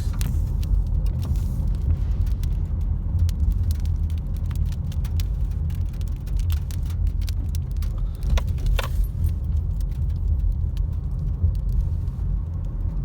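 Car driving, heard from inside the cabin: a steady low road-and-engine rumble with scattered light ticks and rattles.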